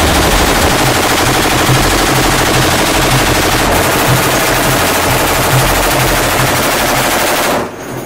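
Canik 12.7×99 mm (.50 cal) heavy machine gun on a bench mount firing one long continuous automatic burst, which stops about half a second before the end.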